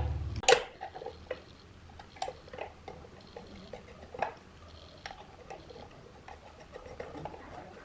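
A low hum stops abruptly just after the start, followed by a sharp click and then scattered light clicks and taps, a louder one about four seconds in.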